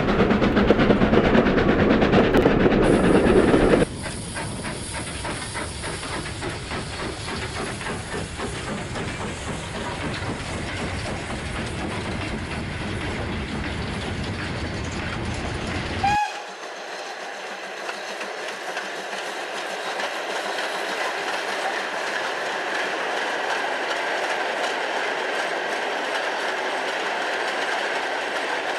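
OO gauge model trains running on a layout: the wheels clatter and click over the rail joints in a steady rattle. It is loudest for the first few seconds, drops suddenly, and from about halfway sounds thinner, with no low end.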